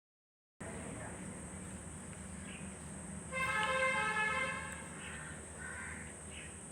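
A single honk-like pitched tone, held steady for about a second and a half near the middle, over a steady background hiss and hum that starts after half a second of dead silence.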